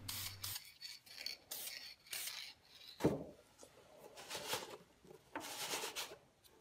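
An aerosol can of clear lacquer hissing briefly at the start. Then comes a series of short rubbing and scuffing sounds of hands handling a wooden mallet over a cardboard box, with a single knock about three seconds in.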